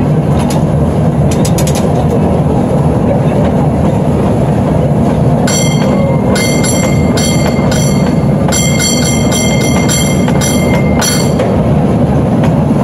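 San Francisco cable car running along its track with a loud, steady rumble and rattle. From about halfway through, its bell clangs in a quick, uneven rhythm for several seconds.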